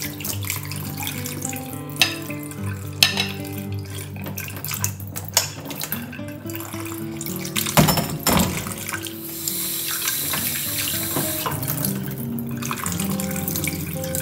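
Water splashing into a sink as soaked almond gum is drained, with a few sharp clinks of a bowl and a stronger pour of water about ten seconds in, over background music with sustained notes.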